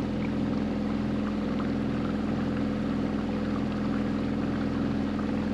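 A Hood 23 trailer sailer's motor running steadily at an even pitch, driving the yacht along.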